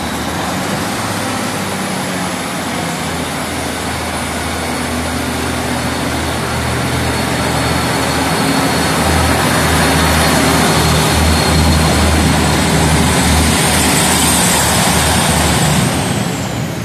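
Class 156 Super Sprinter diesel multiple unit pulling away and passing close by: its underfloor Cummins diesel engines working under load with a low hum and a steady high whine over the rumble of the wheels. The sound grows louder as the train comes level and drops away near the end as the last car passes.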